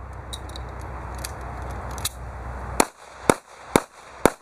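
Taurus Curve .380 ACP double-action-only pistol fired four times in quick succession, about two shots a second, starting a little under three seconds in. Before the shots there is a steady rumbling hiss with a few faint clicks.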